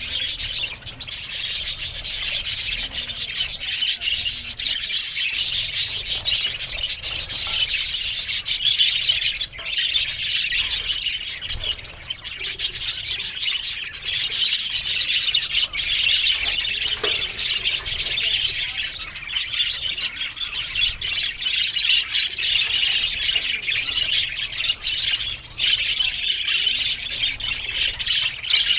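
A colony of budgerigars chattering and warbling together in a dense, continuous din, with many short clicks and chirps running through it.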